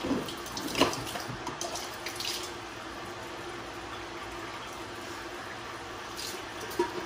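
Raw milk trickling steadily through a flour sack towel into a plastic pitcher as it is strained, with a few light clinks of handling in the first couple of seconds.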